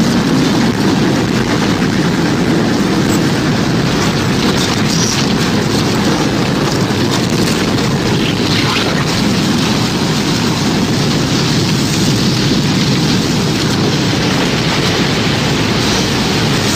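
Loud, steady storm noise: a continuous rumbling rush of wind and rain.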